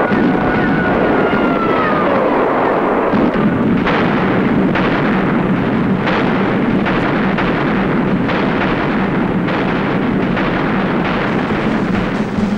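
Battle soundtrack of explosions and artillery fire over a continuous din. In the first couple of seconds there are whistles falling in pitch. From about three seconds in, blasts come regularly, roughly one every three-quarters of a second.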